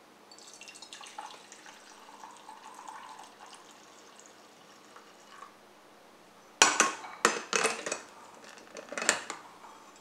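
Hot coffee poured from a glass carafe into a glass mug for about three seconds. Later, a run of sharp glass knocks and clinks as the carafe is set back onto the drip coffee maker's warming plate.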